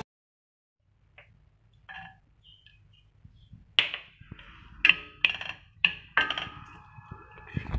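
Chopped garlic being tipped off a wooden board or spatula into a stainless steel pan: from about four seconds in, a handful of sharp taps and knocks, each with a short metallic ring from the pan.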